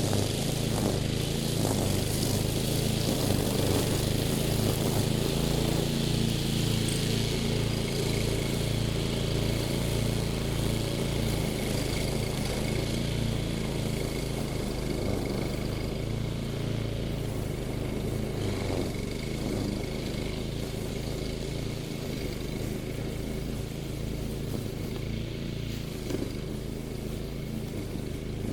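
Engine of a mowing machine running steadily under load while cutting, with a faint steady whine above the engine note.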